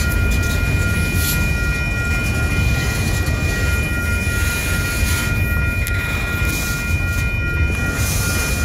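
Freight train's autorack cars rolling steadily past a grade crossing: a continuous low rumble of wheels on the rails, with the crossing signal's bell ringing steady high tones over it.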